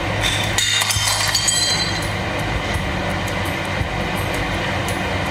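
Steady rushing background noise with a low hum, and a few light clinks in the first two seconds.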